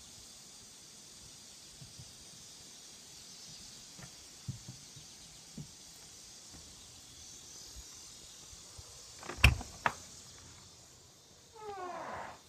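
Insects chirring steadily in the background. About nine and a half seconds in, a wooden door's latch or handle clicks sharply twice. Near the end the door gives a short squeaky creak, rising in pitch, as it opens.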